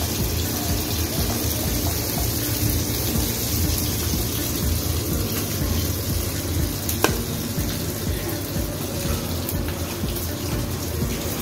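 Chicken pieces deep-frying in hot oil, a steady sizzle, with one sharp click about seven seconds in.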